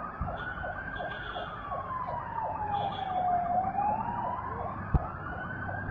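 Emergency vehicle siren wailing, slowly rising and falling in pitch, one full rise and fall about every five seconds. A sharp bang stands out about five seconds in, with a fainter one at the very start.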